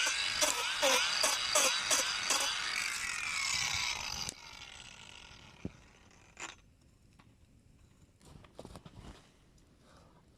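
Hand saw cutting wood in quick, even back-and-forth strokes, about two or three a second, with a squealing rasp on each stroke. The sawing stops suddenly about four seconds in, followed by a few faint knocks.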